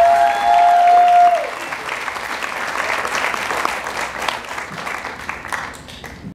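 A singer's final held note ends about a second and a half in, and an audience applauds, the clapping thinning and fading away near the end.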